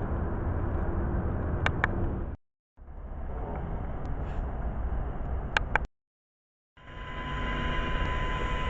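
Steady outdoor rumble and hiss with a few sharp clicks, cut off twice by brief drops to silence. After the second silence a different steady background comes in, with a thin steady tone.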